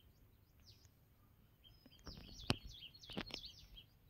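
Small birds chirping in quick, falling notes, busiest from about two seconds in, over a low wind rumble on the microphone. One sharp click about halfway through.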